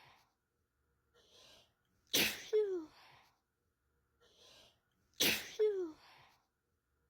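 A person sneezing twice, the same sneeze looped: each time a soft breathy in-breath, then a sharp loud burst ending in a short falling vocal tail.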